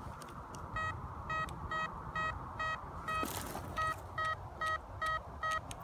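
Metal detector beeping: a run of short, identical electronic tones at a steady pitch, about two a second, pausing briefly midway before carrying on.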